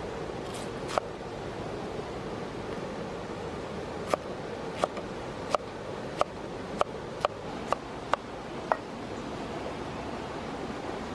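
Kitchen knife chopping pineapple on a wooden cutting board: a single sharp tap about a second in, then a run of about nine taps from around four to nine seconds in, roughly one and a half a second. A steady hiss underneath.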